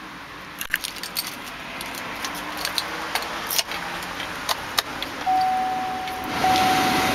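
Keys jangling and clicking as the key goes into the ignition of a 2008 Chevrolet Tahoe and is turned. About five seconds in, the dash warning chime starts: a steady beep repeated with short gaps. A little after that a steady rushing noise comes up.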